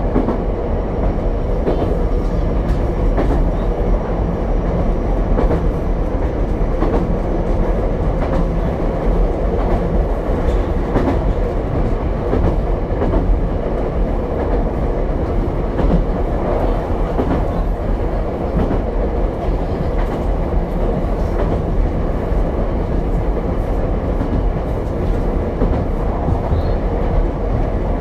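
Ichibata Electric Railway 7000-series single car (No. 7001) running along the line, heard from inside the car: a steady rumble of wheels on rails with a faint steady tone and scattered clacks over the rail joints.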